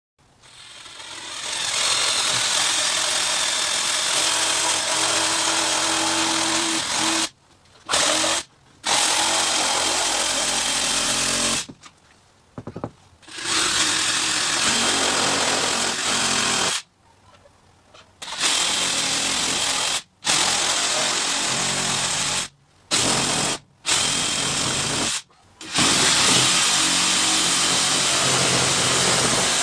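A power tool running in long stretches, stopping and starting again several times with short pauses in between, while old drain pipes are cut out.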